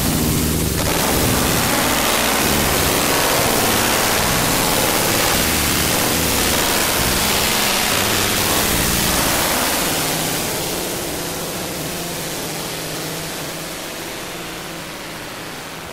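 Electronic music: a dense hiss-like noise texture over low droning tones, easing off gradually over the last several seconds.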